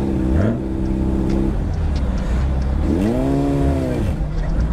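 Honda CBR600RR's inline-four engine running at low speed as the bike rolls along. About three seconds in, an engine is revved up and back down once.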